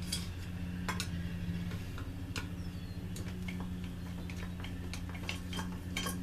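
Light, irregular clicks and clinks of small metal parts and tools being handled on a workbench, over a steady low hum.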